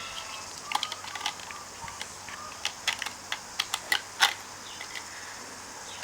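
Hard plastic toy parts clicking and clattering as they are handled, in irregular sharp taps, the loudest about four seconds in.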